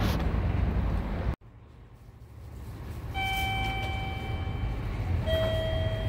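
Outdoor ambience with low wind rumble on the microphone, cut off sharply a little over a second in. Then two long steady tones: a higher one held about a second and a half, then a lower one.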